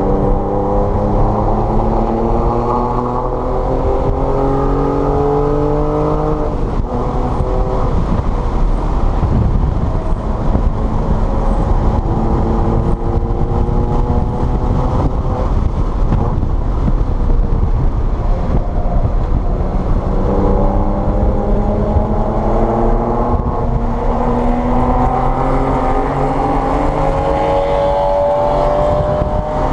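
A car's engine pulling hard on a race track, its pitch climbing in long rising sweeps. A little after six seconds it drops off into rough, noisy running for several seconds, then it climbs again at about twelve seconds and once more from about twenty seconds.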